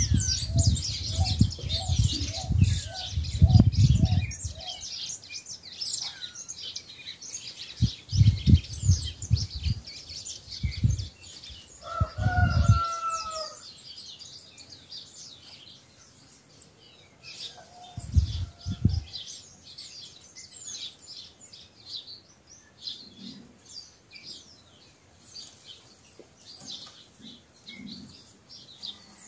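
Many small birds chirping and singing over each other throughout. A rooster crows once, briefly, about twelve seconds in, and a run of short clucking notes comes near the start. Bursts of low rumble run through the first half.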